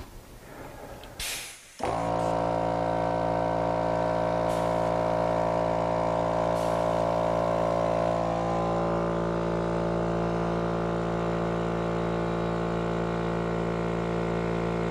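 Small 1.5 hp, 2-gallon WoodRiver portable air compressor running with a steady droning hum after a brief hiss, then cutting off abruptly near the end.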